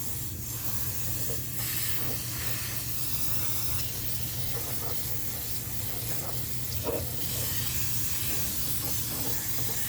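Aerosol brake cleaner spraying in a continuous steady hiss, flushing packed sawdust out from under a scroll saw.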